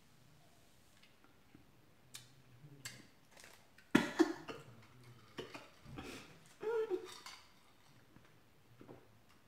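A small plastic packet of salt-and-lemon chili powder being handled, with scattered clicks and light rustles, along with short wordless vocal reactions from the eater, the loudest about four seconds in and another near seven seconds.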